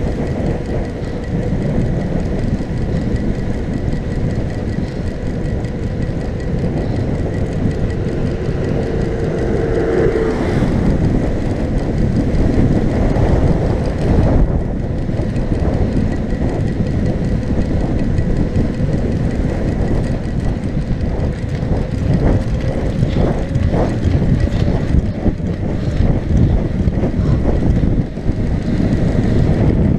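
A mountain bike rolling fast down a rough dirt road, with wind buffeting the microphone and the frame rattling over the surface, and scattered jolts from bumps. A steady tone runs underneath and stops about ten seconds in.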